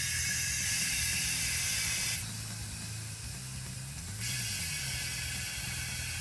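Compressed air hissing from an air compressor trigger gun nozzle pressed into a small hole in the cap of an automatic transmission fluid container, pressurising it at about 5–8 psi to push the fluid through a tube into the transmission. The hiss eases off for about two seconds in the middle, then comes back.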